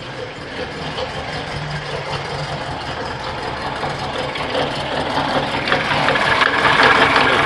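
Engine running with a strange rapid rattling tick on top of its note, growing louder toward the end. The owner later traced it to a nut that had worked loose because he did not tighten it enough when refitting the drive belt.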